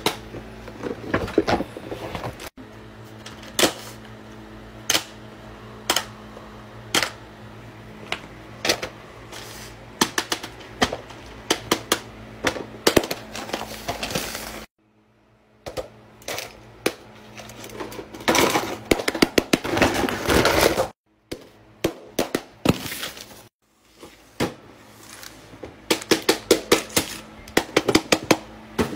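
Fidget toys being pressed and handled, among them a large silicone pop-it: many short sharp pops and clicks, in several stretches broken by brief silences.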